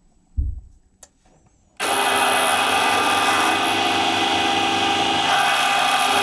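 A power drill is switched on about two seconds in and runs steadily, most likely boring the acrylic pen blank for its brass tube. A low thump and a few light clicks come just before it starts.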